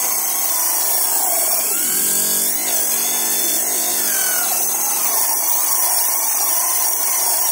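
Small two-stroke nitro glow-fuel RC car engine running with a high-pitched buzz, its pitch wavering up and down for a moment between about two and four seconds in.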